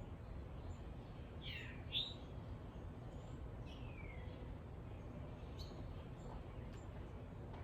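Songbirds chirping outdoors: a few short calls that slide down in pitch, the loudest about two seconds in, with fainter high chirps scattered through, over a steady low rumble.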